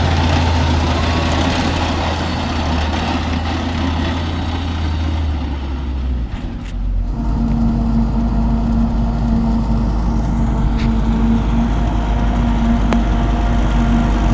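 Heavy farm machinery engines running steadily. A little past halfway the sound dips briefly and settles into a different, deeper steady hum.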